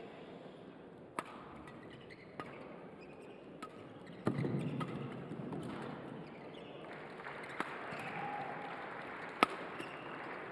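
Badminton rackets striking the shuttlecock in a doubles rally: sharp single cracks every second or so, the loudest near the end. There is a short, dull rumble about four seconds in.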